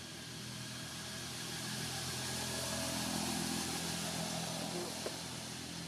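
Motor vehicle engine running nearby, swelling to its loudest about three seconds in and then fading, like a vehicle passing by.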